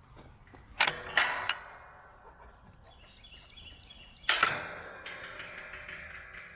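Sharp knocks or bangs with a short ringing tail: two close together about a second in, and another about four seconds in.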